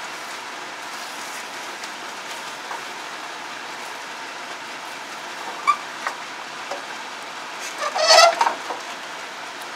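Curry simmering in a pot on a gas burner, a steady hiss, with a ladle stirring through it. About eight seconds in, a brief high-pitched call stands out over it.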